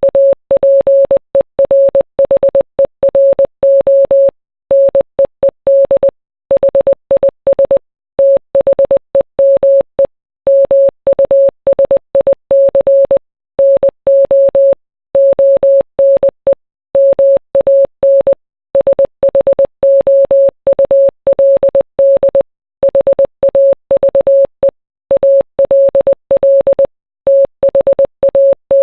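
Morse code: a single steady beep switched rapidly on and off in short and long pulses (dots and dashes), with a faint click at each switch and brief pauses between letters and words, spelling out song lyrics.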